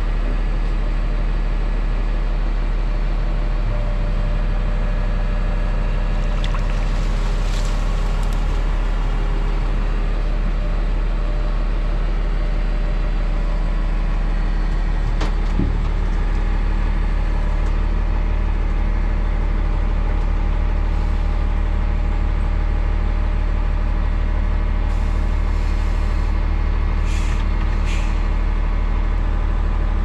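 Engine of a Hough H80B wheel loader running steadily and loudly. Its note shifts a little about four seconds in and again about halfway, with a few brief light clanks or rattles.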